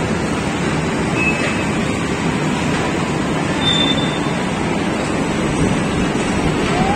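Steady rumbling of bumper cars driving around the rink, heard from aboard one of the cars, with a couple of brief faint beeps.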